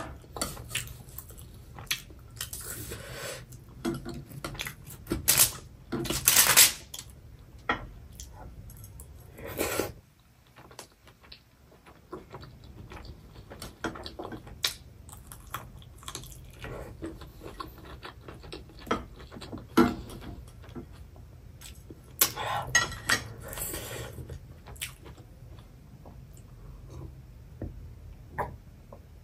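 Chopsticks clicking and scraping against a foil-lined tray and dishes in scattered bursts, picking up small leftover bits of noodles, with chewing between.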